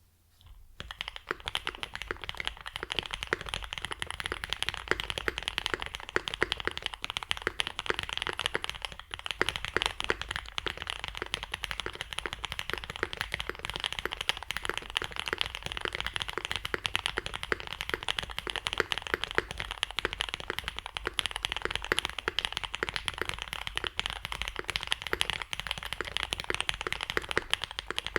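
Continuous fast typing on a Mode 80 custom mechanical keyboard with lubed Alpaca V2 linear switches on an aluminium plate, foam-dampened, with GMK keycaps: a dense stream of keystrokes that starts about a second in.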